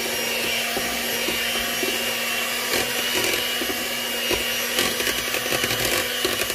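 Electric hand mixer running steadily, its beaters churning thick chocolate cake batter, with irregular clicks and scrapes as they catch the bowl.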